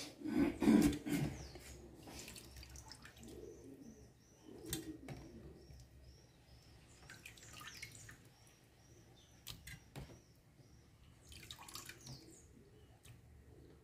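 Wet knocks and clunks of pigeon meat pieces being put into a metal pressure-cooker pot, loudest about a second in. A small bird chirps repeatedly in the background through the middle.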